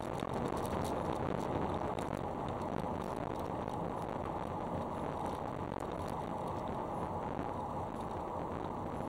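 Steady road noise inside a moving car's cabin: tyres rolling on a narrow rough forest road with the engine running under it.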